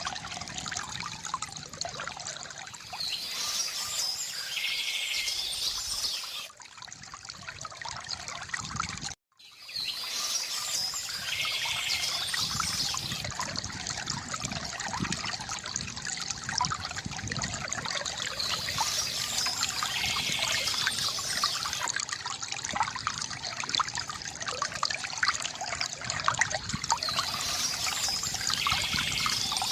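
Water trickling and splashing steadily from a bamboo fountain spout, with bird chirps rising over it every few seconds. The sound dips about six seconds in and cuts out for a moment about nine seconds in.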